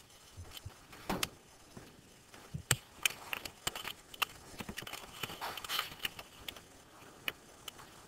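Faint, scattered short clicks and light knocks, a few at irregular moments, over low room noise.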